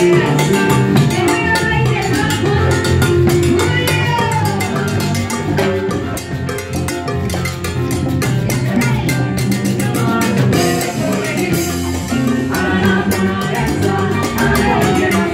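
Live cumbia band playing: keyboard, electric bass, timbales and congas over a steady dance beat.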